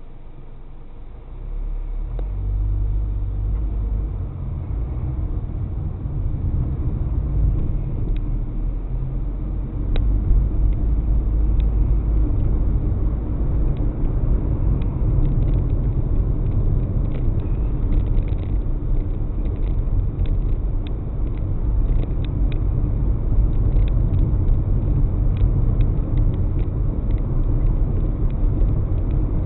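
A car on the move: a steady low road-and-engine rumble that grows louder about a second and a half in and then holds, with scattered light ticks above it.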